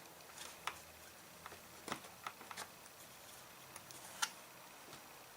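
Faint scattered clicks and light knocks, a handful over a few seconds, from handling the chainsaw's plastic parts and hand tools while taking it apart.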